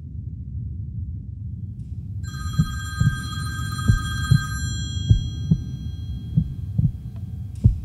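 Heartbeat sound effect: slow, deep double thumps about every second and a quarter, over a low rumble. A high, steady ringing tone starts about two seconds in and lasts about two seconds.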